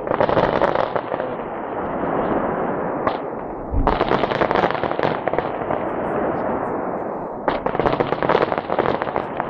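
Fireworks display going off: three volleys of rapid, dense crackling bangs, near the start, about four seconds in and about seven and a half seconds in, over a continuous din of bursts in between.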